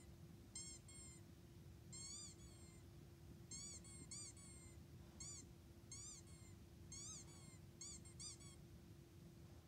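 Faint, high-pitched mewing, like a kitten's: about a dozen short rise-and-fall mews, several in quick pairs, over a steady low hum.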